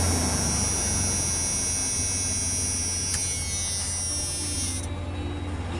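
Pickup truck engine idling just after being started, with fresh oil just put in; a steady low drone. A high hiss over it cuts off suddenly near the end.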